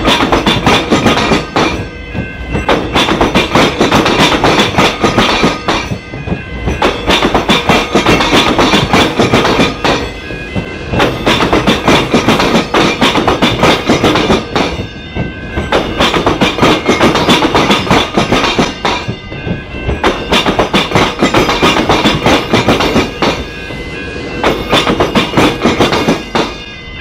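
Electric suburban train passing over a tram square. Its wheels clatter loudly in rapid runs of clicks as they cross the gaps where the tram rails cut through the railway tracks, easing briefly every few seconds between runs.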